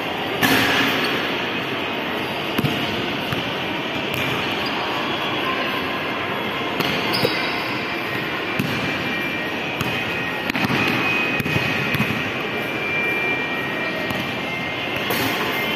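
Basketball bouncing and thudding on a hard tiled floor, echoing in a large hall, with one sharp bang about half a second in. A steady wash of shopping-mall crowd noise underneath.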